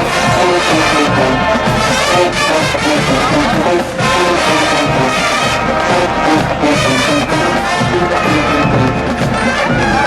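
HBCU marching band playing at full volume: brass and percussion with dense chords and a steady drive, and a brief break about four seconds in.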